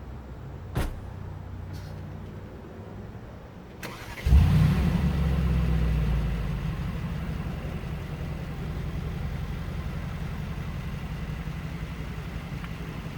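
2019 Mercedes-AMG G63's twin-turbo V8 cold-starting a little over four seconds in with a loud flare, then settling into a steady idle. A sharp click comes about a second in, before the start.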